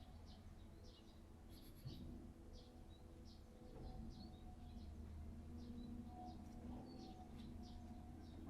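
Faint, scattered short chirps of small birds, several a second at times, over a low steady hum.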